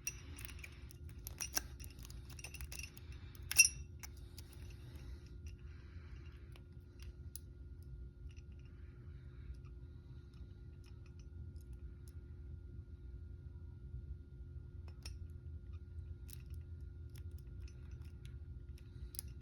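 Lock picks working inside an old Master Lock padlock: small metallic clicks and scrapes, busiest in the first few seconds with one sharper click about three and a half seconds in, then only occasional light ticks. The lock is not opening.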